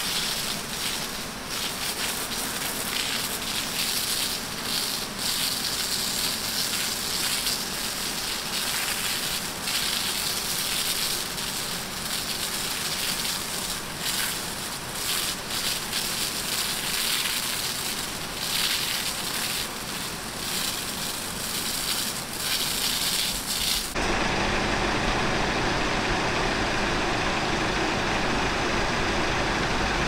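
High-pressure spray jet from a pest-control vehicle's hose hissing and spattering against tree bark and leaves, blasting spongy moth egg masses off the trunk. About 24 seconds in the sound changes abruptly to a steadier, deeper rushing spray.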